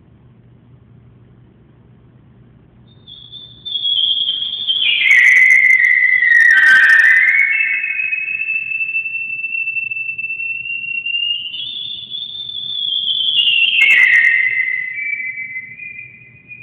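Alto saxophone played in its extreme upper register: one long, very high tone comes in about three seconds in, slides down and swells, holds, rises again about twelve seconds in, then falls near the end.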